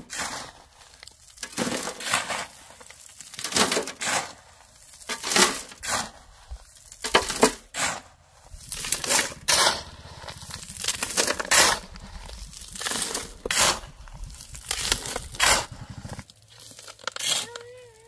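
A steel shovel scraping into gravel and soil and tipping each load into a metal wheelbarrow, a gritty scrape and clatter about every two seconds, stopping a couple of seconds before the end.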